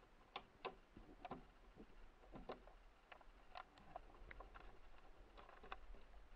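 Faint, scattered small clicks and taps of gloved hands handling a dinghy's metal rudder-gantry fitting and its pin and rod end.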